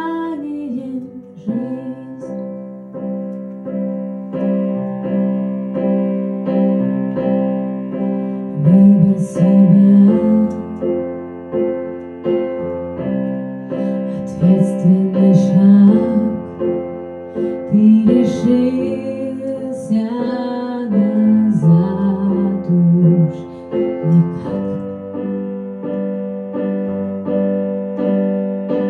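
Piano accompaniment of a pop ballad, playing sustained chords through an instrumental passage between sung lines, with some wordless wavering vocal notes.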